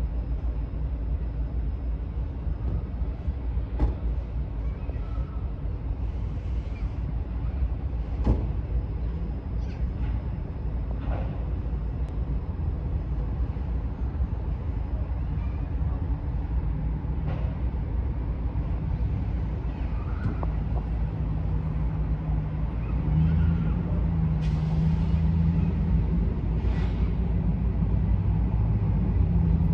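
Diesel locomotive engine rumbling low, its steady engine note coming through and growing louder over the last third, with a few scattered sharp clicks.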